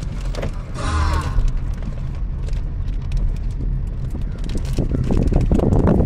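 Suzuki car driving, heard from inside the cabin: a steady low rumble of engine and tyres, with knocks and rattles from bumps in the road. There is a brief pitched sound about a second in, and the road noise grows louder and rougher near the end.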